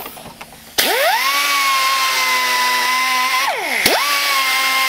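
Dremel rotary tool spinning up to a high steady whine, with a hiss over it, about a second in as it grinds out the eye socket of a rigid foam skull. A little past three and a half seconds it winds down with a falling pitch, then spins straight back up and runs on.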